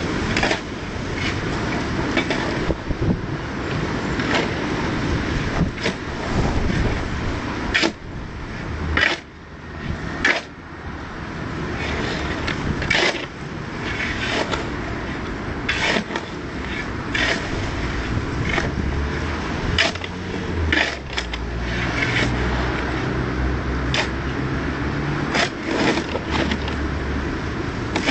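Driveway kerbstone work: stone and tools scraping, with frequent sharp knocks. A low steady hum joins in during the second half.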